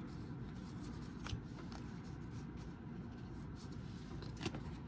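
Paper trading cards being handled and slid past one another, faint, with a couple of soft ticks about a second in and again near the end, over a steady low hum.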